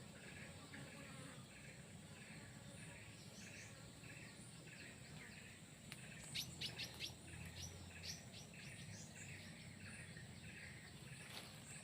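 Small birds chirping. A run of short, sharp chirps starts about halfway through, over a faint call that repeats about twice a second.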